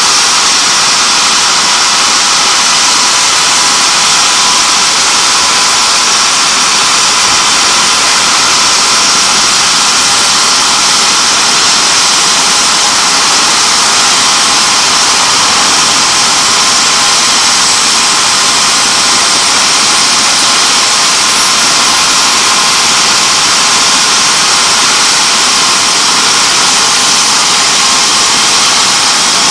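BK 117 rescue helicopter's twin turbines and main rotor running steadily at ground idle, a loud even turbine whine and rushing noise. A faint high whine climbs slowly in the second half.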